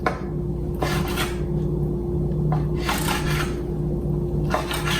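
Kitchen knife slicing raw chicken thighs into thin strips on a cutting board: several drawn-out sawing strokes, with a steady low hum underneath.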